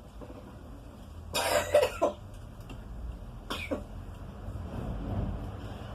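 A person coughing: a loud cough about a second and a half in, then a shorter one a couple of seconds later.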